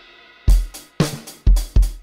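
Alesis DM8 Pro electronic drum kit playing its built-in drum sounds: a ringing hit fades out, then from about half a second in come four strong hits, each with a deep bass drum thump and a bright cymbal splash.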